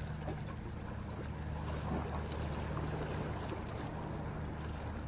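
Sea water washing and lapping against the concrete blocks of a breakwater, a steady, even noise with a low rumble under it.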